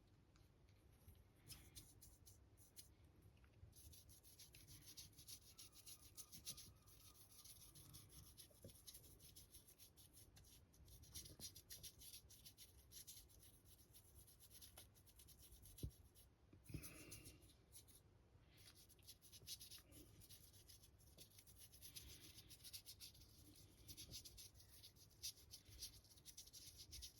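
Faint scratching and rubbing of a paintbrush working acrylic paint onto a 3D-printed figure.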